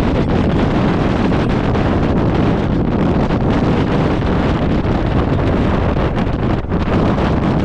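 Gale-force wind buffeting the microphone: a loud, steady low rumble with a rushing hiss, fluttering slightly but never letting up.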